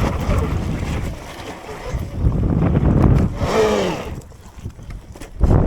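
Sur-Ron electric dirt bike being ridden off-road, with wind buffeting the microphone and rumbling noise from riding over the dirt. About three and a half seconds in, the electric motor's whine bends and falls in pitch as the throttle comes off, and it goes quieter before another loud burst near the end.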